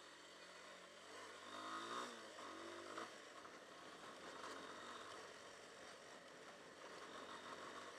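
Hartford VR150's 150cc single-cylinder air-cooled engine running faintly while riding over a rough gravel track, its pitch rising as it revs up between about one and three seconds in, with rattling from the bike and stones.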